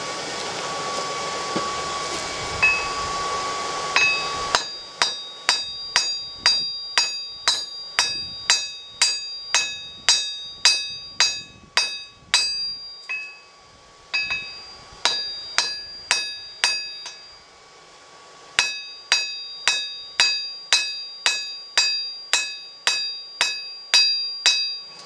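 A hand hammer strikes red-hot steel held in tongs on an anvil, each blow ringing, about two blows a second. The blows come in three runs with short pauses and follow a few seconds of steady rushing noise at the start.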